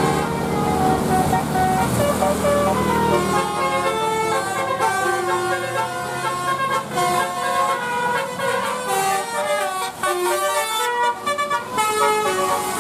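Indonesian bus 'telolet' horn, a multi-note air horn, playing a quick tune of short notes stepping up and down in pitch. A bus engine runs low underneath for about the first two seconds.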